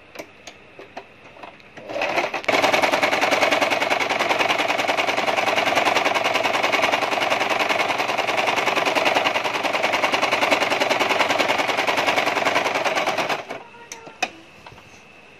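Domestic electric sewing machine stitching a seam at a steady fast speed, starting about two seconds in and stopping shortly before the end. A few light clicks come before it starts and after it stops.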